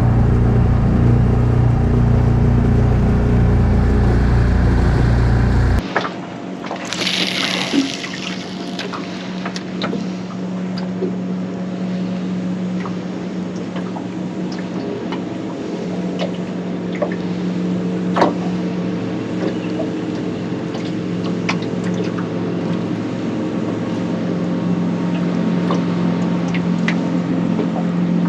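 Aluminium tinny under way, its outboard motor running with water rushing along the hull. About six seconds in, the sound changes abruptly to a lower, steadier hum with water noise and scattered small ticks.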